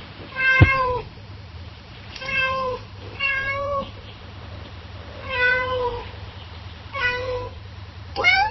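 A domestic cat meowing six times, each meow short with a bending pitch and the last rising at its end, over a faint steady low hum. A short sharp thump comes with the first meow.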